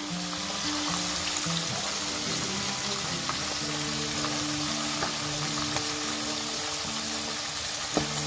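Small freshwater minnows (버들치) shallow-frying in a pan of hot oil: a steady, rain-like sizzle with scattered small crackles and one sharper pop near the end. Background music plays underneath.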